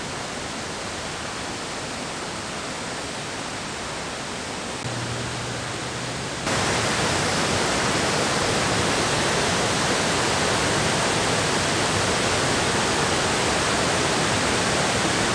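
Rushing water of a creek and waterfall, a steady roar of noise that steps up louder about six and a half seconds in.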